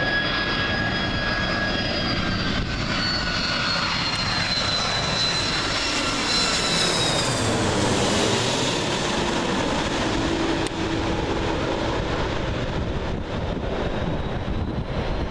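Twin-engine widebody jet airliner passing low overhead on landing approach with its gear down. Its turbofan whine slides down in pitch as it goes by, loudest roughly halfway through, then fades into a broad rumble as it moves away.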